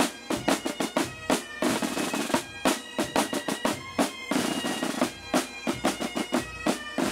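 Bagpipe music with a snare drum: held bagpipe notes carry a melody while the drum plays quick rolls and beats.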